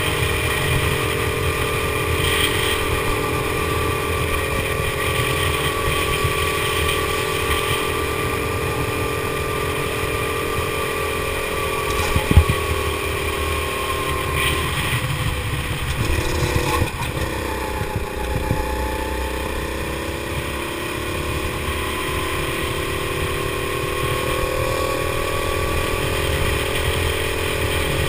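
Go-kart engine running hard, heard from on board the kart. Its pitch drops about fifteen seconds in as the kart slows, then climbs gradually as it picks up speed again, with a single sharp knock about twelve seconds in.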